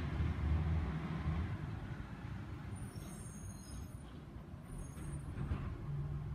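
Garbage truck's diesel engine running some way off, a low steady rumble that fades somewhat in the middle and builds again near the end.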